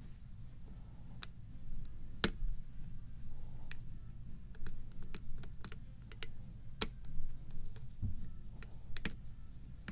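Irregular small sharp clicks and ticks of a lock pick working the pins inside a Wilka challenge lock cylinder held under tension, a few clicks louder than the rest.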